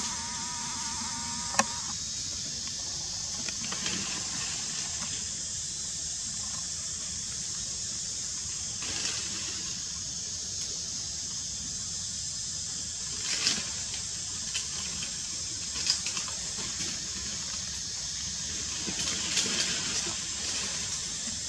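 Steady outdoor background hiss with a few faint clicks scattered through it. A short, wavering, high monkey call fades out in the first second or so.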